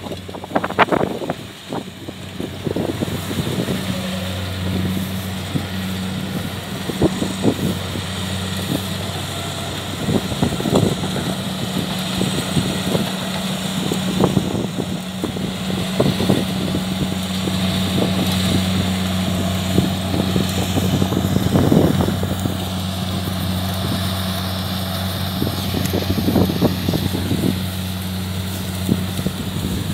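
Kubota DC70 combine harvester's diesel engine running with a steady hum that settles in a couple of seconds in, with wind buffeting the microphone.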